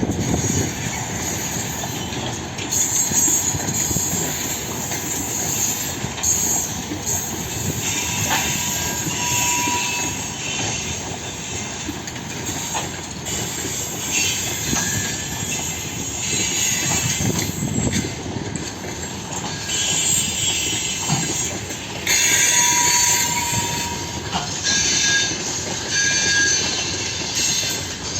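Freight train wagons rolling past, wheels running over the rails with a steady rumble and clatter. Now and then the wheels squeal and screech against the rails, with short thin whistling tones.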